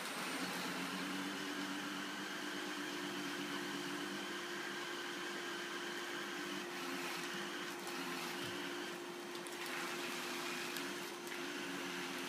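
Vacuum cleaner running steadily: a constant motor hum under a hiss that shifts now and then.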